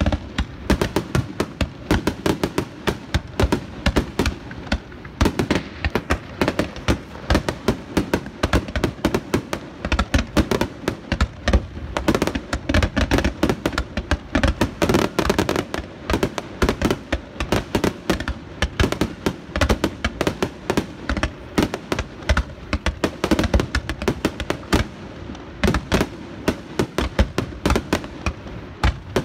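Aerial firework shells bursting in a dense, continuous barrage: many overlapping sharp bangs, several a second, with no let-up.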